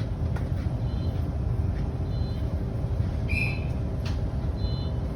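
Steady low rumble and hum of a commuter train standing at a station platform, with a few faint short high tones and one brief high squeak a little past halfway.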